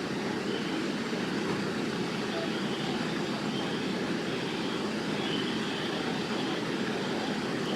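A steady low rumble of vehicle noise, even in level throughout.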